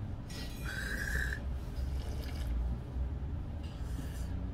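Dining-room background noise: a steady low hum, with a short hiss about a second in.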